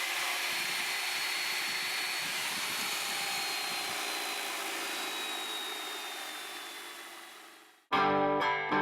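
A small motor running steadily with a high whine that sinks slightly in pitch, fading out over the last few seconds.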